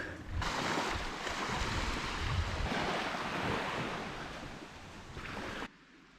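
Wind buffeting the microphone over the rush of waves on the shore, a steady noise that cuts off suddenly near the end.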